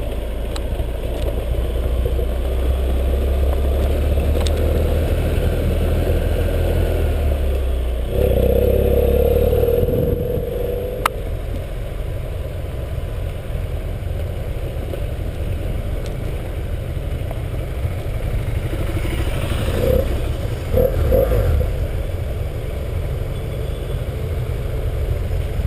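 BMW 798 cc parallel-twin adventure motorcycle engine running under way on a gravel track, heard from a helmet-mounted camera, with gravel crunching and clattering under the tyres. The engine gets louder for about two seconds, about eight seconds in.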